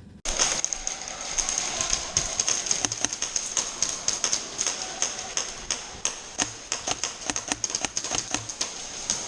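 Airsoft guns shooting on the field: scattered sharp clicks and cracks at an irregular pace, over a steady high hiss.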